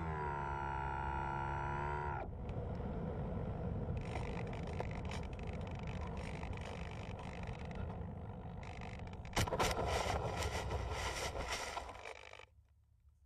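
The model plane's electric motor and 8x4 propeller whine steadily, then drop in pitch and cut out about two seconds in, leaving the rush of air over the gliding airframe. About nine seconds in the plane hits the grass with a sudden knock and scrapes along the turf for a couple of seconds before stopping: a belly landing.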